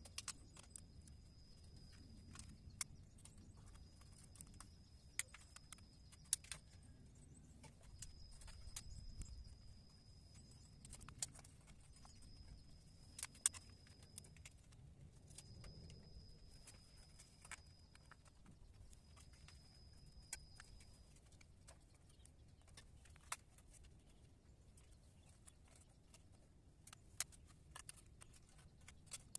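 Faint scattered clicks and light knocks of plastic bottle planters being handled and hung on a metal railing. A thin high tone, each about two seconds long, comes and goes six times through the first two-thirds.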